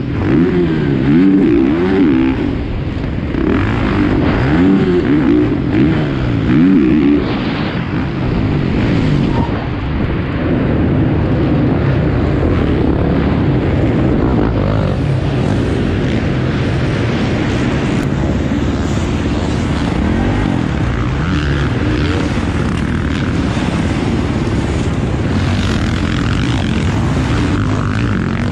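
450cc single-cylinder four-stroke motocross bike engine heard close-up from the bike, revving hard up and down through the gears for the first several seconds, then running more steadily under throttle around the track.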